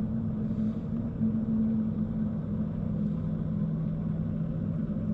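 A motor vehicle's engine running steadily, a low hum with a rumble underneath.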